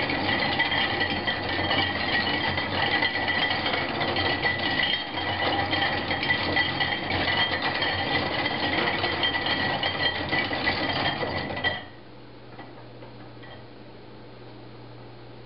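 Hand-cranked metal drawing machine running: its gears and linkages clatter with a steady high whine, and the pen swings its pattern on the paper. It stops abruptly about twelve seconds in, leaving only a faint low hum.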